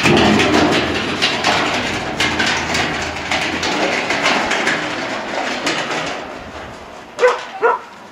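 A blue plastic drum rolling over gravel, a loud clattering rumble that starts suddenly and slowly fades away. A collie gives two short barks near the end.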